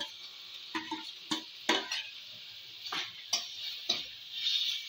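A flat metal spatula scraping and knocking against a steel karahi while fried onions are stirred into frying masala paste, in about six irregular clicks over a faint sizzle.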